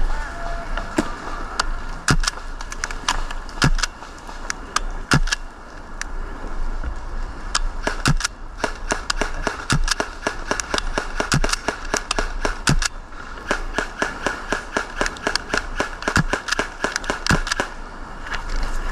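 Airsoft guns firing in a game: scattered single shots, then rapid strings of shots about halfway through and again near the end.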